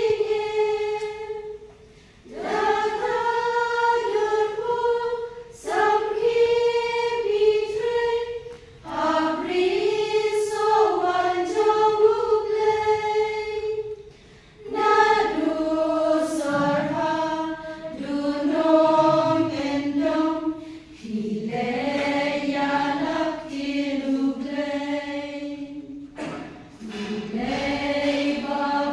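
Church choir singing in sustained phrases of a few seconds each, with short breaks between them.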